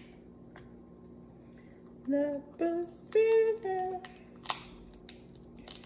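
A woman's voice sings a few short held notes in the middle. Crab-leg shells are being cracked and picked apart by hand, making sharp cracks and clicks, with one louder crack a little past the middle.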